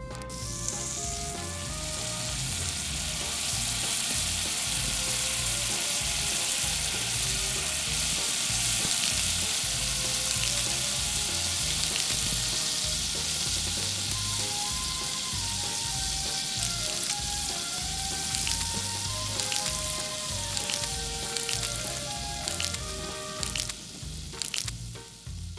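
Squid pieces in a crumb coating frying in hot oil in a miniature pan: a steady sizzle that swells slightly over the first few seconds.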